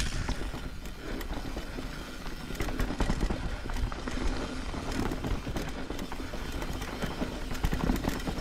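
Trek Slash 8 mountain bike rolling down a dirt singletrack: steady tyre noise on the trail, with the bike rattling in many small clicks and knocks over the bumps.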